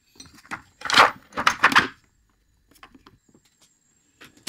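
Metal sockets and a plastic socket tray being handled in a tool chest drawer: a few clacks and clinks, loudest in the first two seconds, then a few faint clicks.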